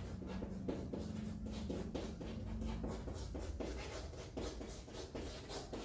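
Someone writing by hand: a quick, irregular run of short strokes, over a steady low hum.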